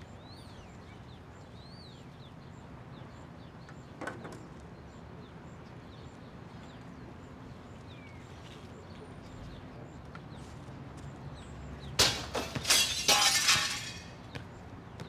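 Birds chirping over quiet outdoor ambience, with a single knock about four seconds in. About twelve seconds in comes a loud crash of breaking glass as a basketball hits a window, lasting a couple of seconds.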